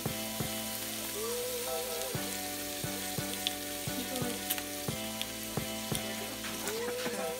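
Small octopuses sizzling as they fry in oil in a frying pan: a steady crackling hiss. Background music with an even beat plays underneath.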